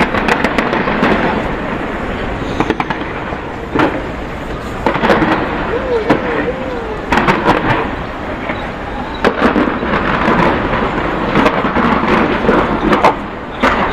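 Fireworks display going off: sharp bangs that come in clusters every second or so, over a steady crackle and hiss of bursting shells, with a crowd's voices underneath.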